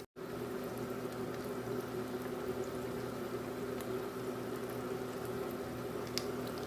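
Hot oil sizzling and bubbling steadily around breaded mac and cheese bites deep-frying in a pan, with a few faint crackles and a steady low hum underneath.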